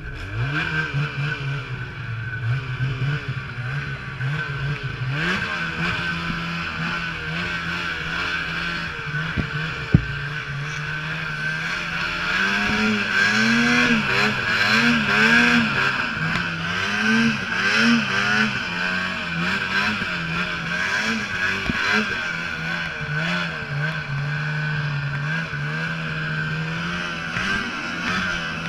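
Snowmobile engine running hard through deep powder snow, its pitch rising and falling as the throttle is worked, over a steady high whine. A single sharp knock about ten seconds in.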